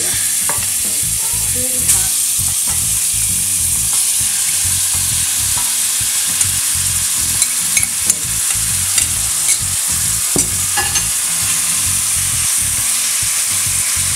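Marinated chicken pieces sizzling loudly in hot avocado oil in a stainless steel sauté pan, a steady frying hiss. Occasional short clicks of a spoon and spatula against the pan.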